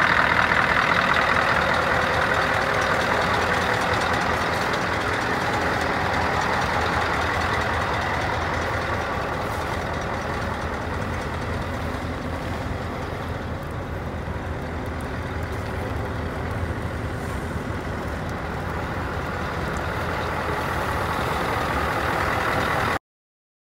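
Scania R164 480's 16-litre V8 diesel idling steadily at close range, with a loud hiss of air over it that fades over the first half.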